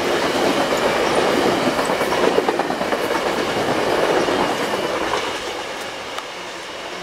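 Stainless-steel VIA Rail passenger cars rumbling past at reduced speed under a slow order. The sound drops off about five seconds in as the last car rolls away.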